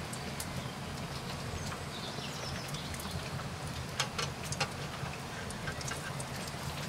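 Freshly fried bacon strips still sizzling in their hot fat, a steady hiss with small crackling pops scattered through it and a few louder pops about four seconds in.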